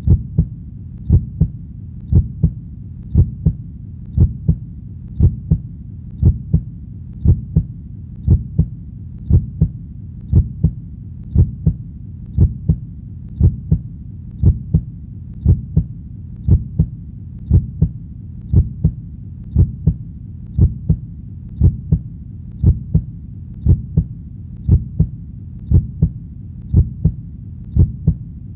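A heartbeat beating steadily and slowly, each beat a double thump (lub-dub), a little under one beat a second, over a constant low hum.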